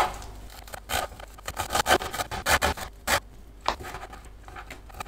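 Chef's knife chopping fresh parsley and dill on a wooden cutting board: a run of sharp, irregular taps of the blade on the wood, quick at first and thinning out after about three seconds.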